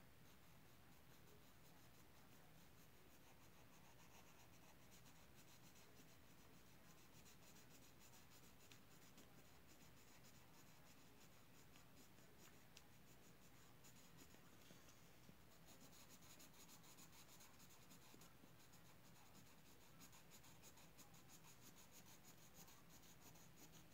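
Faint scratching of hand drawing or writing strokes, quiet and continuous, getting busier in the last third.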